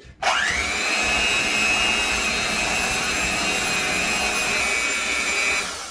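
Electric hand mixer running on low speed, its beaters briefly mixing the last of the flour into cake batter. The motor starts with a rising whine that levels off, runs steadily, then dies away near the end as it is switched off.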